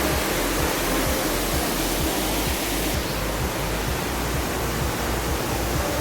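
Steady, loud rush of a waterfall: an even roar of falling water with no breaks.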